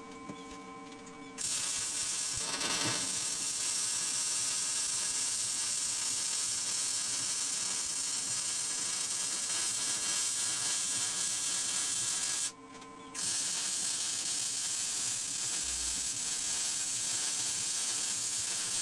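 Electric arc welding on the steel beam: a steady hiss of the arc starts about a second and a half in, breaks off for under a second about two-thirds of the way through as the weld is paused, then starts again.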